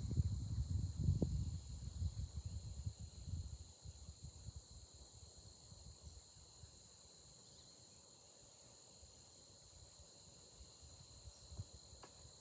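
Steady, high-pitched chorus of insects chirring without a break. A low, uneven rumble in the first few seconds dies away by about four seconds in.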